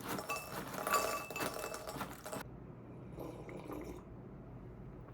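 Glass clinking with some liquid sound for about two and a half seconds, then it cuts off suddenly and only faint handling noise remains.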